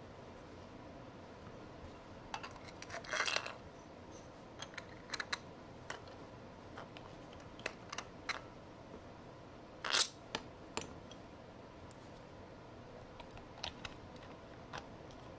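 Small clicks, taps and rattles from handling a hard flask-shaped case and a Dynavap vaporizer stem as parts are fitted and caps worked. A cluster of rattling clicks comes about three seconds in, and the sharpest, loudest click comes about ten seconds in.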